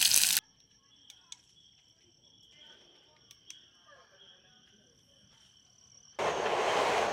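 Dumplings sizzling in hot oil for a moment, then cut to faint, steady insect trilling in the evening with a few light clicks. About six seconds in, louder camp noise comes in.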